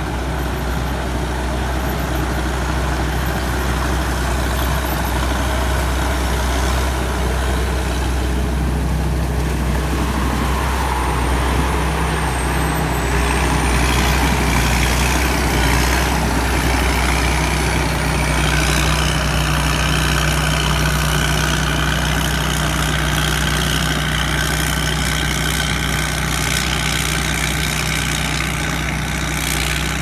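Tamgo S7000 combine harvester running under load while cutting and threshing rice, its Hino J08C 260 hp diesel engine running steadily. It grows louder about halfway through as the machine passes close, and a steady whine joins in during the second half.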